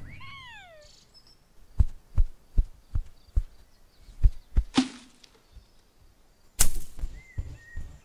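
Hand-made foley effects for a cartoon rodent. It opens with a quick set of falling whistled glides, then a run of soft low thumps about two or three a second. A loud noisy burst breaks in about halfway, another comes near the end, and a short level whistle follows.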